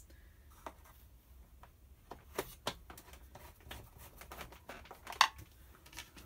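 Scattered light clicks and taps of a screwdriver and screws being worked into the plastic underside of a Hoover upright vacuum cleaner, with one sharper knock about five seconds in.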